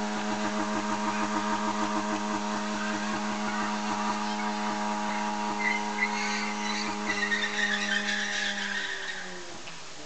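A car engine held at high, steady revs through a burnout, with the spinning tyres squealing for a few seconds past the middle. The revs drop away near the end.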